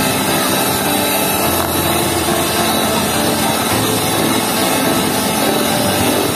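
Electric hand mixer running steadily, its twin beaters whipping a thick cream mixture in a stainless steel bowl.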